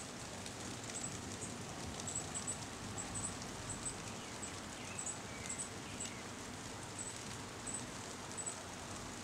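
Steady rain shower on foliage, with leaves rustling in the breeze. Short high chirps recur irregularly, about once or twice a second, over the rain.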